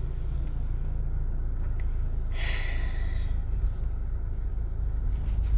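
Low, steady rumble of a car moving off slowly, heard from inside the cabin, with a short breathy hiss about two and a half seconds in.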